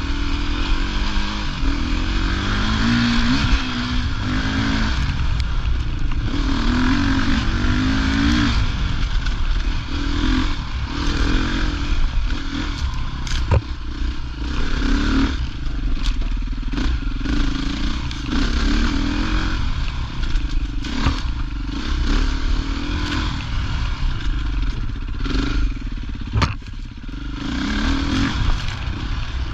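Off-road rally motorcycle engine pulling along a dirt trail, revving up and down again and again as the rider works the throttle. A few sharp knocks from the bike or trail sound along the way.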